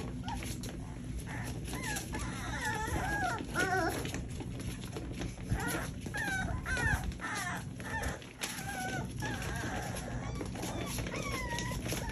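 Young puppies whimpering and squealing in high, wavering cries, one after another, with scratchy shuffling of paws and bodies on the bedding.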